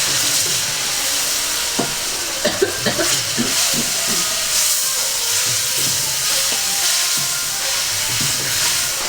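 Onion, tomato and ginger-garlic masala sizzling in ghee in a kadhai while it is stirred, with a few knocks of the spoon against the pan about two to three seconds in.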